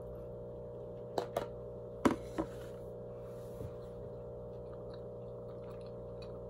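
Steady electrical hum under a few short clicks of a metal fork while eating: two about a second in and two more about two seconds in.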